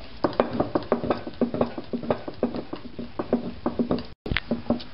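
A wooden rolling pin rolling out dough on a round wooden rolling board. It makes quick, irregular wooden knocks and clacks, about four a second, as it goes back and forth, with a brief break just past four seconds in.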